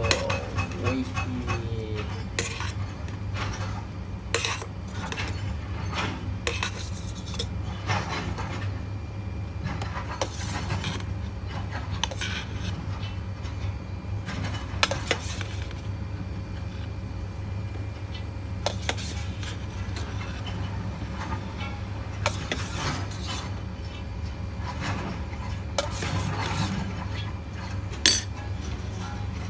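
A metal fork clinking and tapping against a ceramic bowl and an electric kettle as instant noodles are tipped out and spread in the soup, in scattered short clicks with a sharper clink near the end, over a steady low background hum.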